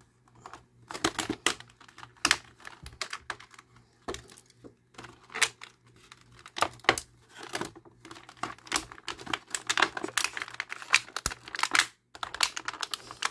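Clear plastic blister packaging being handled and pulled about, giving irregular crackles and sharp clicks.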